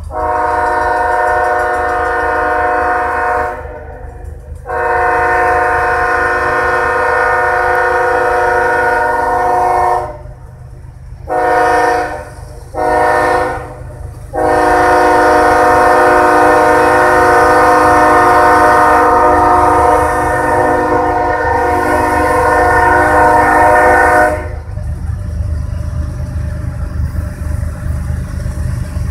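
Diesel freight locomotive's air horn sounding as the train approaches: two long blasts, two short ones, then a long blast held about ten seconds. A low diesel rumble runs underneath and grows after the horn stops near the end.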